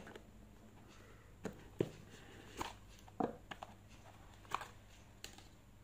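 Cardboard smartphone box being handled and its lid taken off: a handful of short, separate knocks and taps of card against card and hands.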